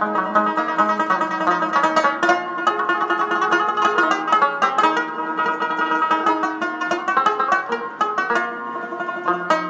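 Background music: a fast-picked plucked-string tune over a held low note.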